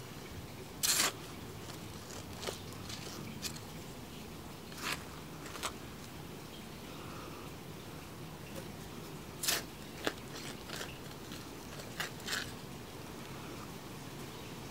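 Carrots being pulled up out of loose garden soil by their leafy tops: a scattered series of short, crisp snaps and rustles, about ten in all and irregularly spaced, the loudest about a second in and another a little before the ten-second mark, over a faint steady background noise.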